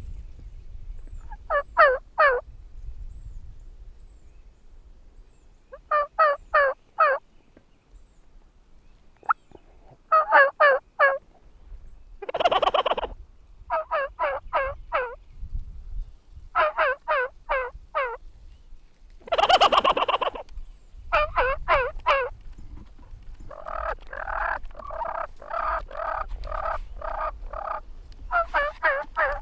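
Wild turkeys calling close by: about a dozen loud bursts of quick repeated notes, with gobbles and a longer run of calls near the end.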